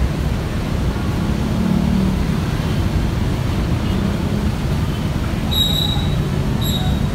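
Intercity coach's diesel engine idling with a steady low rumble, with two brief high squeaks near the end.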